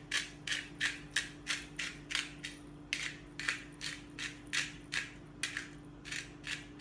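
Hand-twisted pepper grinder cracking peppercorns, a steady run of short crunching rasps, about three a second.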